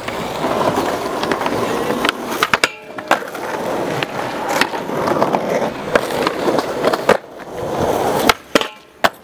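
Skateboard wheels rolling over concrete, broken by several sharp clacks of boards hitting the ground. The rolling drops out briefly and suddenly twice, about three seconds in and near the end.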